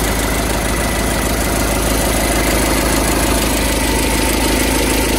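2011 Skoda Superb's 2.0 TDI diesel engine (code CFFB) idling steadily, with its auxiliary belt tensioner worn and moving back and forth excessively.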